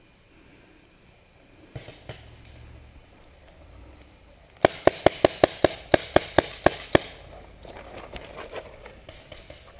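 Paintball marker firing a rapid string of about a dozen shots, roughly five a second, lasting about two and a half seconds.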